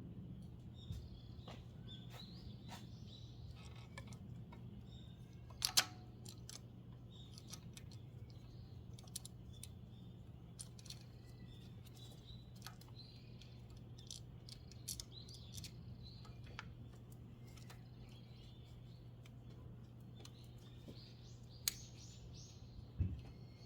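Birds chirping faintly in the background over a steady low hum, with scattered sharp clicks and light knocks, the loudest about six seconds in and twice near the end.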